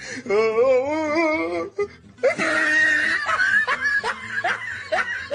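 A long wavering, warbling voice note, then a burst of laughter made of short rising 'ha' sounds, about two or three a second.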